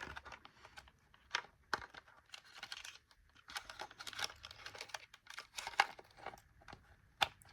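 Scattered light plastic clicks and crinkling rustles from handling the plastic parts of a Bissell Powerforce Turbo upright vacuum as its headlight wire is fitted back into the housing.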